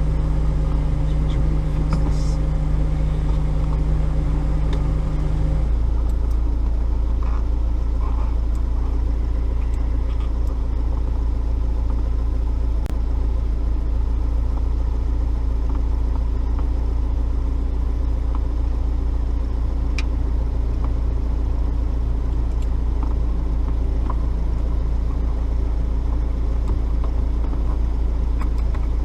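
A steady low rumble, with a humming tone that stops about six seconds in, and a few light clicks.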